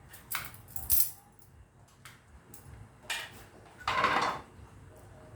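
Metal clinks and rattles from work on an air compressor's belt drive: four short bursts, the last and loudest a rattle of about half a second near four seconds in. No motor is running underneath them.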